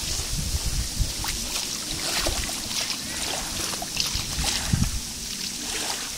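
Footsteps wading through shallow water, with small sloshes and splashes as the feet move.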